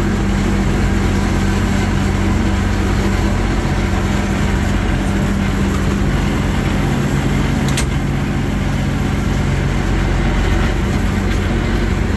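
Allis-Chalmers 190XT Series 3 tractor engine running steadily as the tractor creeps along, heard from inside its closed steel cab. A single sharp click comes about eight seconds in.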